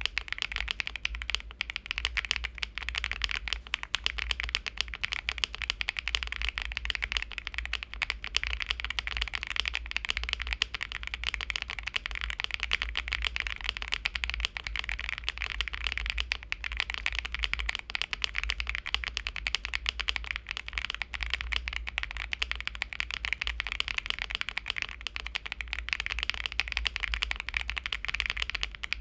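Fast, continuous typing on a Heiji Snake AL70 mechanical keyboard with a PC plate, full foam, Akko Green Fog switches and GMK keycaps: a dense, even stream of thocky keystrokes.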